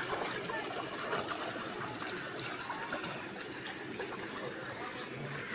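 Floodwater running and trickling steadily.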